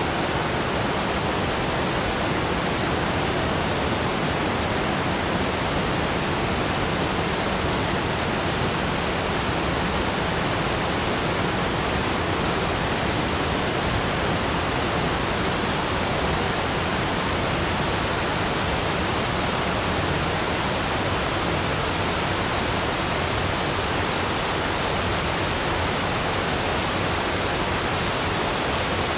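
Cascading waterfall: a steady, even rush of falling water with no change in level.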